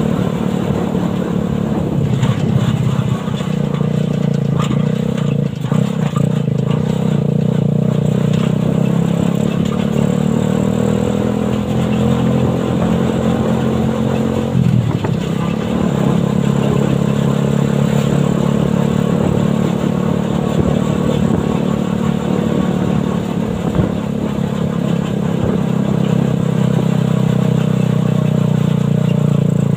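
Suzuki Satria FU 150cc single-cylinder motorcycle engine driving a homemade buggy, running steadily while under way. About halfway through the engine note dips briefly, then picks up again.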